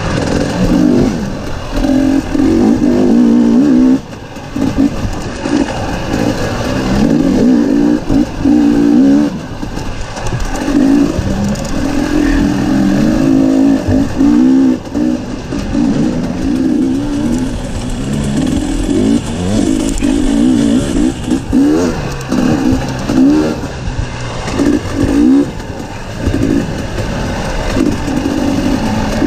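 Dirt bike engine revving up and down, its pitch rising and falling again and again as the throttle is worked, with short dips near 4 s and 9.5 s.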